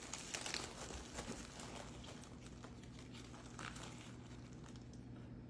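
Faint rustling and light crackly handling sounds as sugar-coated cinnamon roll chunks are picked out and dropped into a baking dish, busiest in the first second or so and again near the middle.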